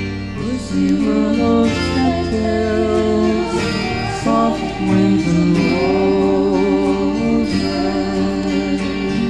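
Late-1960s folk-psych song playing from a record: acoustic guitars strummed and picked over bass.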